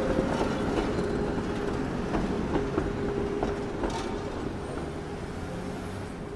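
Outdoor town-square ambience: a steady hum with a faint held whine, scattered light clicks and knocks, growing fainter toward the end.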